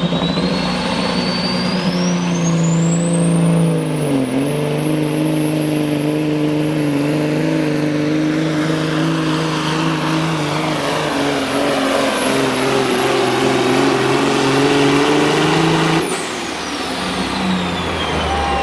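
Caterpillar-powered Pro Stock semi truck's diesel engine running at full power pulling the sled. A high turbo whistle rises to a steady pitch over the first few seconds, and the engine pitch dips briefly about four seconds in. About sixteen seconds in the engine is let off suddenly and the turbo whistle falls away as it winds down.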